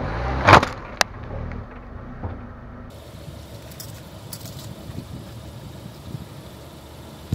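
A car tyre rolling over an electric toy tarantula, with a loud crack of its plastic body about half a second in and a sharp snap a moment later, over the low rumble of the car. Then quieter, with a few faint clicks as the broken toy's plastic pieces are handled.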